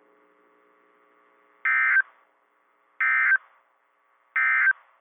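Emergency Alert System end-of-message code: three short, identical bursts of warbling digital data tones about 1.3 seconds apart, sounded just after a warning broadcast ends.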